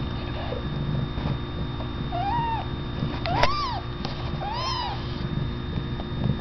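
Newborn kittens mewing: three short, high calls about a second apart, each rising and then falling in pitch.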